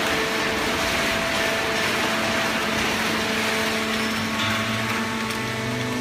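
Fully automatic horizontal hydraulic baler plant for waste cardboard running: a steady machine hum with several held tones over an even hiss, and a deeper hum joining about four and a half seconds in.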